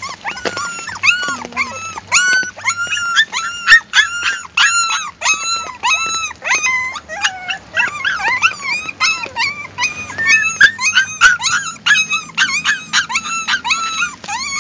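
Puppies crying: a fast, unbroken string of short, high-pitched cries, two or three a second, each rising and falling in pitch.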